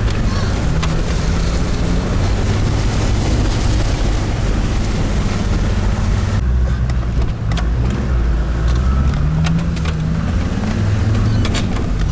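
Off-road 4x4's engine running with the revs rising and falling several times, over a rushing noise and occasional short knocks.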